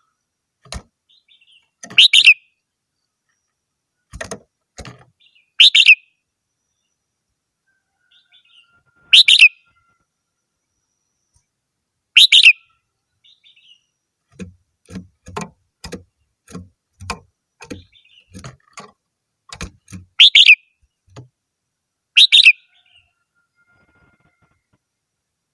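Red-whiskered bulbul singing short, loud, bright phrases every few seconds. Between phrases, a run of short knocks comes about twice a second in the second half.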